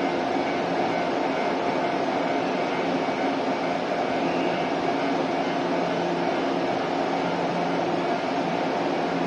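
Steady machinery hum of an electric train, several held tones over a constant even rumble with no rail-joint clicks.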